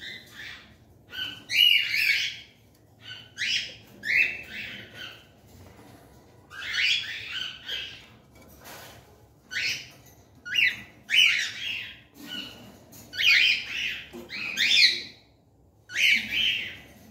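Cockatiels giving repeated harsh, screechy calls, about a dozen short calls at irregular intervals of roughly a second.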